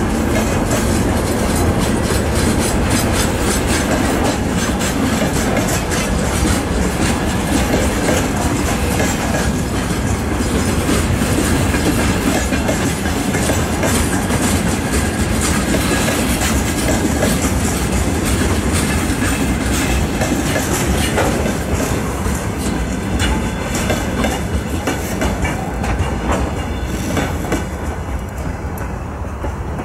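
Freight wagons of a slow shunting train rolling past on the rails, their wheels clacking over the rail joints, steady and loud. The noise eases off near the end as the last wagon goes by.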